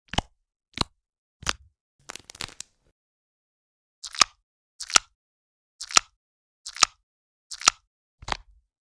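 A series of short, sharp plops, roughly one a second, each with a faint ring, with a brief crackly rattle about two seconds in.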